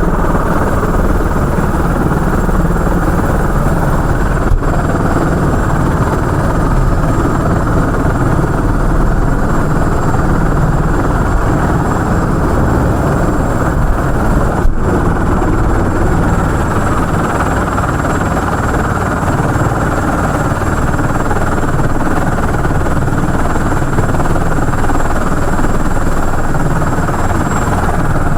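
Helicopter in flight: loud, steady rotor and engine noise with a thin high whine over it.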